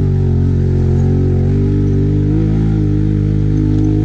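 Can-Am ATV engine running steadily as the quad is ridden, its note shifting slightly a little over two seconds in.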